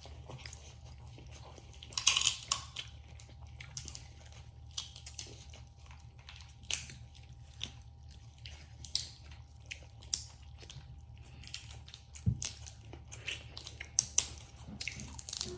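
Eating sounds from a seafood boil: chewing and biting, with scattered sharp cracks and clicks from handling crab legs and their shells. The loudest crunch comes about two seconds in, over a faint steady hum.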